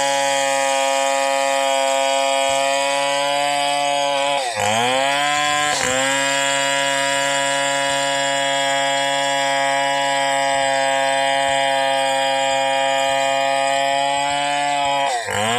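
Stihl 070 two-stroke chainsaw running at high revs under load as it cuts lengthwise along a felled yakal hardwood log, a steady engine note; twice the pitch drops sharply and climbs back, about four and a half seconds in and again near the end.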